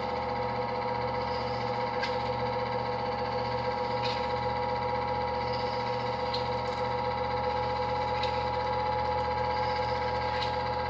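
8mm film projector running: a steady mechanical whine held on several pitches, with a faint click about every two seconds.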